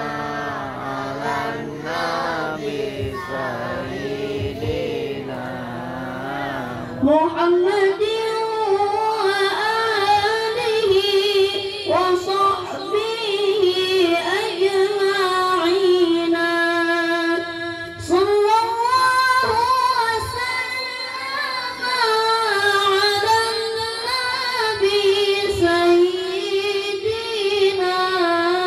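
A child qari reciting the Quran in the melodic tilawah style, in a high-pitched voice with long ornamented phrases. About seven seconds in, the voice leaps up in pitch, and a little past halfway one long note is held steady for about two seconds.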